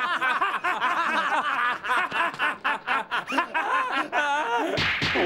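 Men laughing in quick, repeated bursts of cartoon-style laughter. Near the end the laughter stops and a wavering comic music cue comes in.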